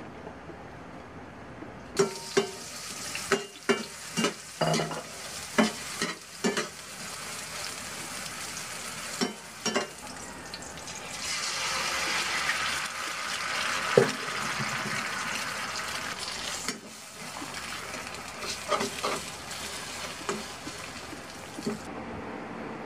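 Sliced hotdog frying in oil in a frying pan, sizzling, with a utensil scraping and knocking against the pan many times. The sizzle grows louder for a few seconds around the middle, when an egg is cracked into the pan, with one sharp knock.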